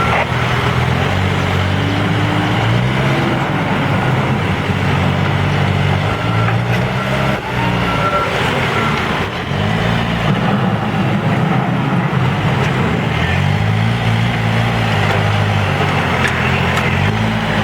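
Diesel engine of a Case 590 Super N backhoe loader working under hydraulic load while loading dirt, its revs rising and falling over and over. A backup alarm beeps about four times around six to nine seconds in.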